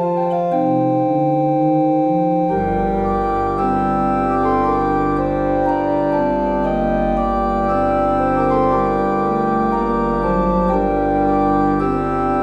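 Background music: sustained organ-like keyboard chords, with a deep bass layer coming in about two and a half seconds in.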